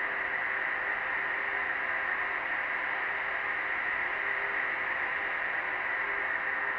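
Snowstorm wind blowing steadily, an even rushing hiss with no gusts or breaks, with a faint steady drone beneath it.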